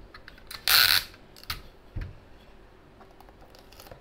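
A short, loud rip of clear tape pulled off a desk tape dispenser about a second in, followed by a few light clicks and a soft knock as hands press it onto the cardboard box.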